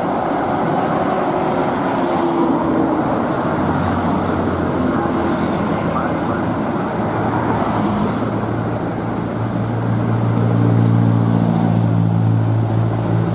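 A bus's diesel engine runs with a steady low hum over general outdoor noise. The hum sets in a few seconds in and grows louder near the end.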